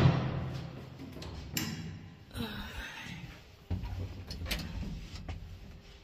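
A door bangs shut right at the start and the sound fades over about a second. Then come a few scattered clicks and knocks, and from about two thirds of the way in a low rumble, as a lift is entered.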